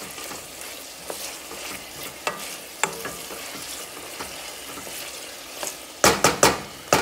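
Chopped onion, green pepper, garlic and bay leaves sautéing in corn oil in a stainless steel pot: a steady sizzle with a wooden spoon stirring and scraping through the vegetables, the onion not yet translucent. A quick run of loud knocks comes about six seconds in.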